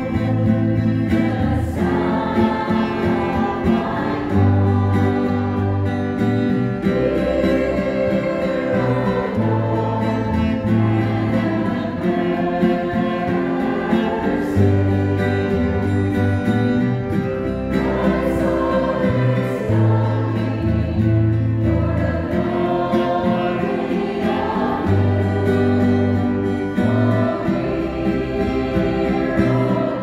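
Church choir singing a hymn together, accompanied by two strummed guitars.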